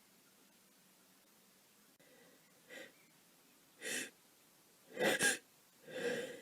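A woman with a head cold taking short, catching gasps that grow louder, starting about two and a half seconds in: the hitching build-up to a sneeze.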